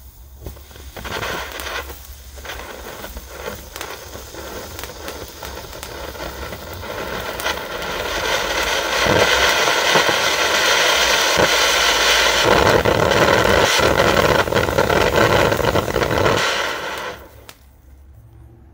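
Heron 'Funk Festival' F1 cone fountain (red-base firework volcano) burning: its spark spray hisses, building over several seconds to a loud, steady rush. It then dies away abruptly about two seconds before the end.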